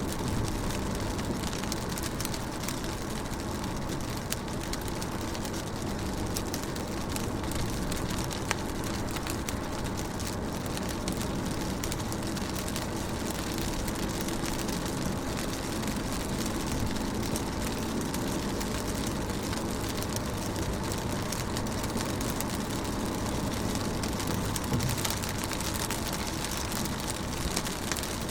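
Rain pattering steadily on a window pane, a dense run of small drop ticks over a hiss of falling rain, with a faint low steady hum underneath.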